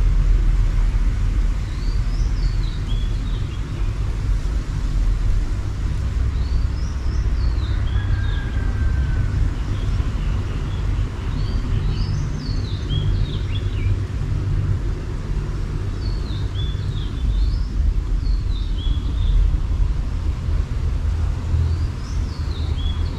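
A bird calling a short rising-and-falling chirped phrase every few seconds over a steady low rumble.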